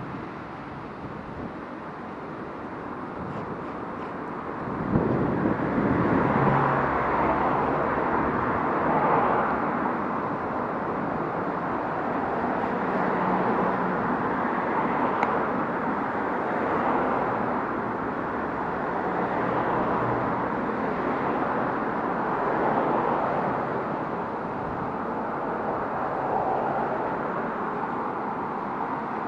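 Road traffic passing: cars' tyre and engine noise swelling and fading every few seconds over a steady rush, getting louder about five seconds in.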